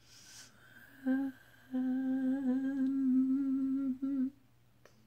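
A man humming: a short note about a second in, then a long held note with a slight wobble.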